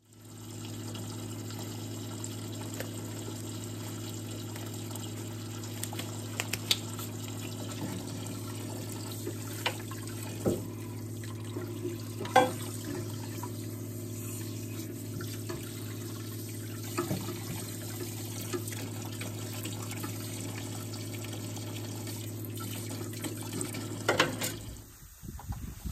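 Liquid running with a steady electric hum under it and a few sharp clicks and knocks; the hum and flow stop suddenly about 25 seconds in.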